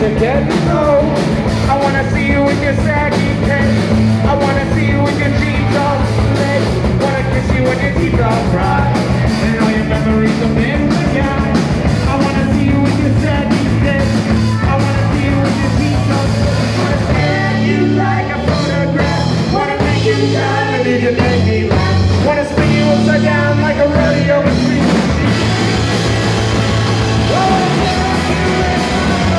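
Live punk rock band playing loud: distorted electric guitars, bass and drums under a woman singing lead. A little past the middle the cymbals drop away and the band plays in short stop-start hits for several seconds, then comes back in full.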